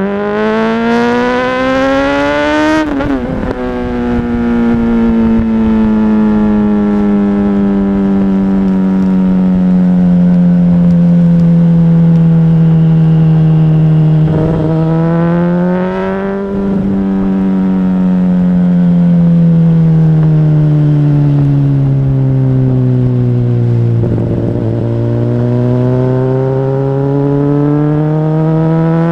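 Honda CBR600RR inline-four engine under way: it revs up hard at the start, shifts gear about three seconds in, then the revs sink slowly as the bike rolls on. The engine changes note again around the middle and near the end, where the revs climb once more, with wind rushing past during the first pull.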